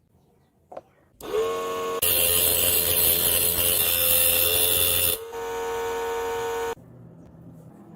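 A small electric motor whines as it spins up about a second in. It runs much louder and harsher for about three seconds, drops back to the plain whine, and stops suddenly near the end.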